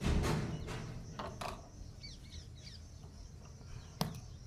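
A loud scraping rustle at the start as a monkey scrambles up a brick wall, with smaller scuffs about a second in and a single sharp knock near the end. Small birds chirp in the background throughout.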